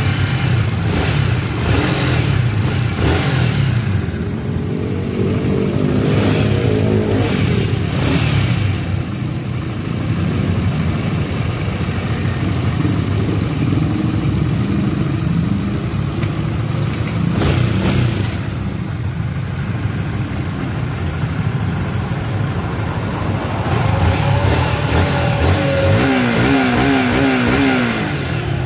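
Honda Supra GTR 150 single-cylinder engine idling, revved in several short throttle blips, just after a new cam chain and cam chain tensioner have been fitted to cure its rough, rattly running.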